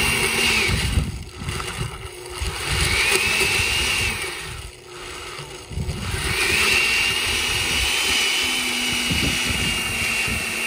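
Countertop blender on its margarita setting, puréeing a thick mole mixture of chiles, plantain, bread and chicken stock. The motor runs in three bursts, a high whine over the churning: it stops about a second in, runs again for about a second near the three-second mark, then restarts about six seconds in and keeps going.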